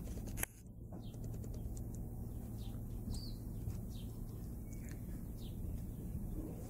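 Small birds chirping: short, high, falling chirps every second or so, over a low steady hum.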